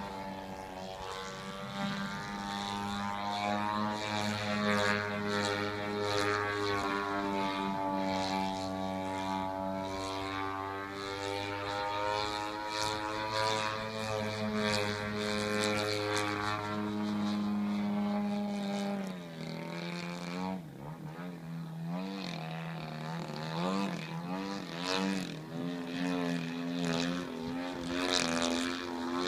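Engine of a Hangar 9 Extra 300 radio-controlled aerobatic model plane flying overhead: a steady drone for about nineteen seconds, then the pitch drops and wavers up and down.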